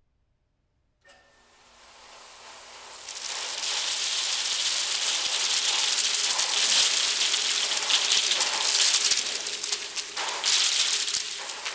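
Electric motor starting up about a second in with a steady hum, spinning a tractor tire into a mound of corn. A dense hiss of corn kernels being flung and landing on the floor builds over the next few seconds, then keeps on loud.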